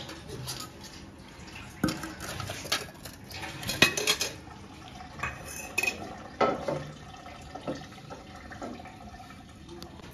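Kitchen clatter of dishes and cutlery: irregular clinks and knocks of plates, bowls and utensils being handled, the loudest about four seconds in.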